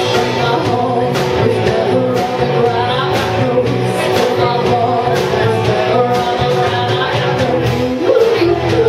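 Live rock band playing amplified electric guitars and drums, with a woman singing lead.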